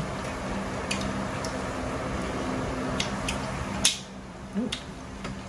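Crab-leg shells being cracked and eaten: a few sharp cracks and clicks, the sharpest nearly four seconds in, over a steady background hum.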